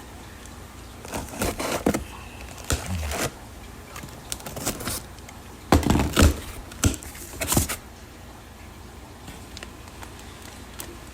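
Shipping packaging being handled: a run of irregular rustles, clicks and knocks, busiest and loudest a little past the middle, then settling down.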